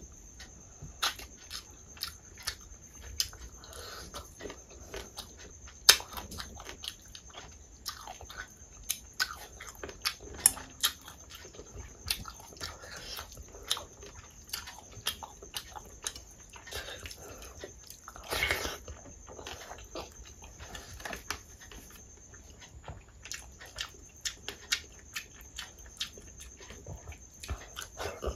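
Close-miked mouth sounds of eating rice and dal by hand: chewing with many quick wet lip smacks and clicks, and fingers squishing rice into the dal, with one longer, louder wet sound about two-thirds of the way through.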